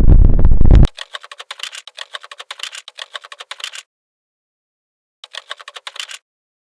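Wind buffeting the microphone for the first second, cut off abruptly; then a dubbed-in keyboard-typing sound effect: rapid clicking for about three seconds, dead silence, and another second of clicking near the end.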